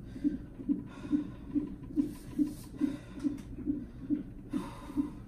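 Fetal heart monitor's Doppler sound beating steadily at about two and a third beats a second, around 140 a minute. Over it, a woman in labour breathes heavily through her open mouth in several long breaths.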